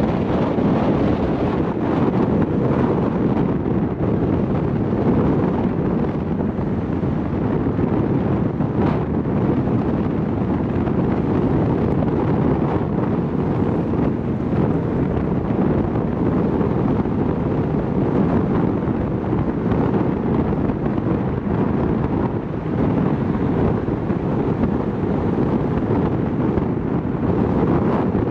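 Strong monsoon storm wind buffeting the microphone of a camera mounted on the outside of a car: a steady, loud low rumble of wind noise.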